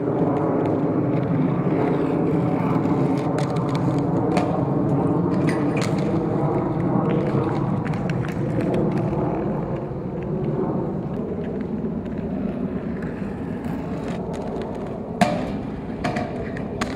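A loud, steady drone with a fixed pitch. Near the end comes a sharp knock and brief metallic ringing as inline skates land on and grind a metal driveway security barrier.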